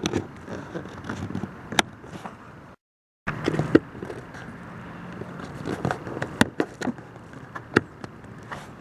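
Scattered sharp plastic clicks and knocks as interior trim pieces are handled and their tabs pushed into place, over a steady background hiss.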